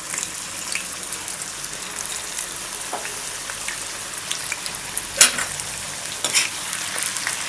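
Plain cut potato fingers deep-frying in oil: a steady sizzling hiss with scattered crackles, and one sharp click about five seconds in.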